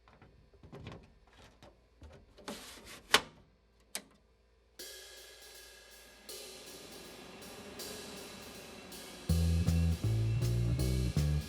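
A few scattered clicks and knocks, one sharp one about three seconds in. Then intro music with a drum-kit beat starts about five seconds in, and loud low bass notes join near the end.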